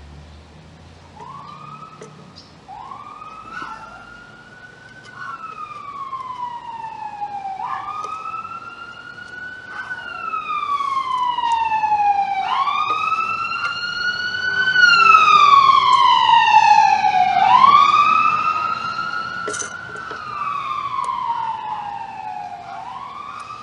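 Emergency vehicle siren wailing as it passes: a rise-and-fall wail about every two and a half seconds. It grows louder to a peak past the middle, really loud, then fades away.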